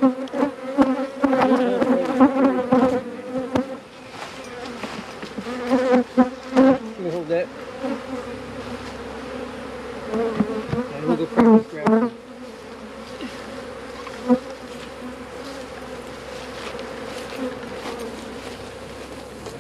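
Honeybees buzzing in flight around the hive. The steady hum swells with louder, wavering passes in the first few seconds and again around ten to twelve seconds in.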